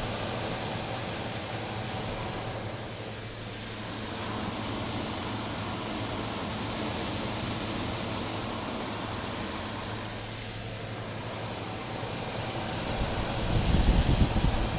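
1978-79 GE Sahara dehumidifier running: its fan blowing steadily over a low, even hum from its Aspera compressor, a unit like the Tecumseh AE, which runs quietly and smoothly and is working properly. A louder low rumble comes up near the end.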